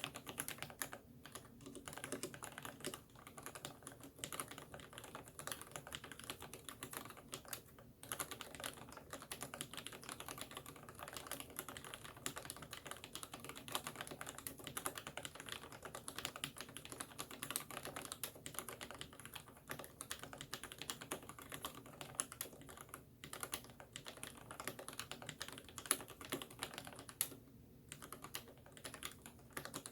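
Typing on a Ninja87 Alu XO mechanical keyboard with lubed Gateron Black linear switches and PBT Cherry-profile keycaps: a fast, continuous run of keystrokes with a few brief pauses.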